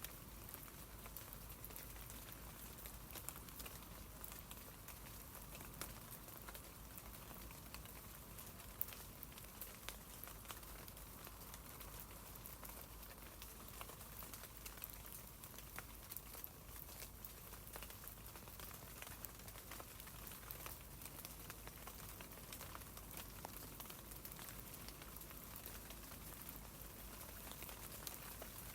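Rain falling on tree leaves: a faint, steady hiss dotted with many small ticks of drops striking the leaves.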